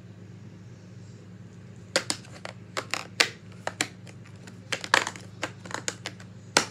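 Art supplies clattering: irregular hard clicks and clacks as a hand rummages through markers and pencils, knocking them together, starting about two seconds in.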